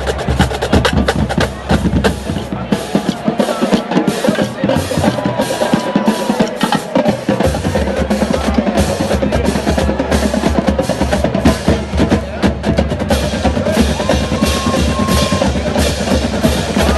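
Marching band music with a busy drumline playing throughout. The deep bass drums drop out about two seconds in and come back about seven seconds in.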